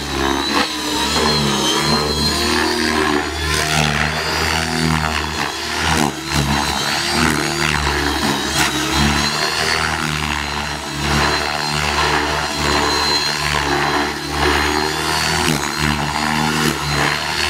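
Align T-Rex 600E electric RC helicopter flying aerobatics: its motor and drive-gear whine wavers up and down over the steady beat of the main rotor as the pilot works the throttle and blade pitch.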